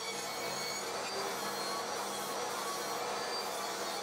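Table saw running steadily while ripping a pine bed slat lengthwise into thin strips, the motor's even whine over a constant hiss of cutting.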